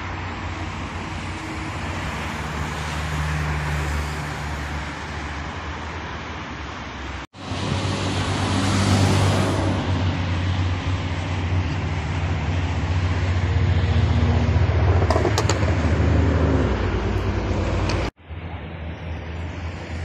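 Road traffic: cars and trucks running along a multi-lane expressway, a steady rush of tyres and engines with a low hum underneath. It breaks off abruptly twice, about a third of the way in and near the end.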